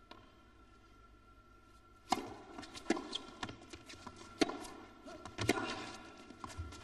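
A tennis ball bounced on the court before the serve, then the serve is struck about two seconds in and a rally follows: sharp racket-on-ball hits about once a second, with ball bounces and footfalls on the court between them.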